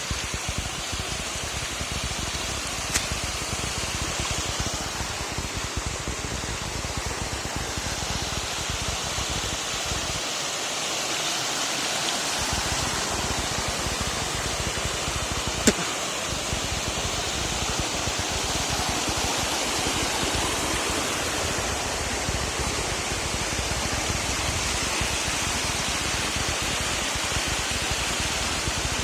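Steady rushing of waterfall water, with two brief sharp clicks, one a few seconds in and a louder one about halfway through.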